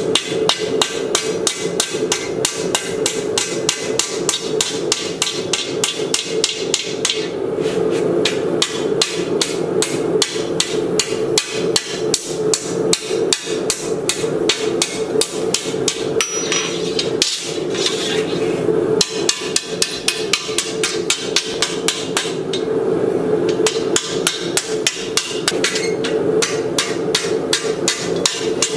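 Hand hammer striking red-hot 3/16-inch by 1-inch steel flat bar on an anvil face, in a fast, even run of ringing blows about three a second. The run has a few short pauses while the bar is repositioned, as the end of the bar is forged out for a hinge.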